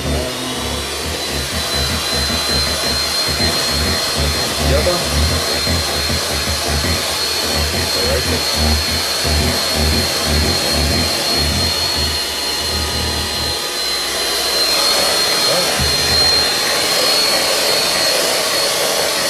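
Electric hand mixer running steadily with a high motor whine, its beaters whipping thick, fridge-set chocolate ganache in a stainless steel bowl. An uneven low rumble from the beaters in the bowl drops away about fourteen seconds in.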